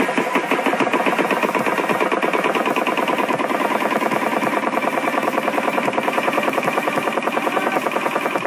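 Astron Aerospace Omega 1 pistonless rotary engine prototype idling, a steady, fast, even pulsing beat.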